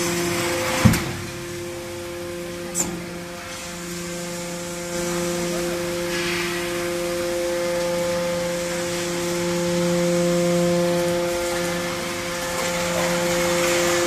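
Hydraulic scrap metal baler running: its electric motor and hydraulic pump give a steady whine while the rams move. A sharp clunk about a second in, and a smaller one near three seconds.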